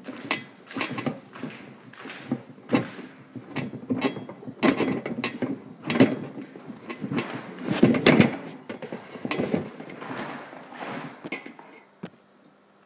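Irregular knocks, scuffs and rustles of footsteps on a parquet floor and of a handheld phone being moved about. The sounds stop about twelve seconds in, as the phone is set down.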